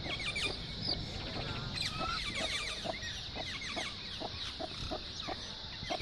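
Ten-day-old Aseel chicks peeping: many short, high, downward-sliding cheeps in quick succession, over a steady high hiss.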